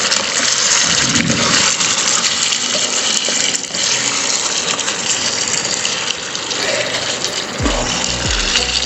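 Mutton curry sizzling in a hot nonstick pan while it is stirred with a steel spoon, a steady hiss. Background music with low repeating notes comes in near the end.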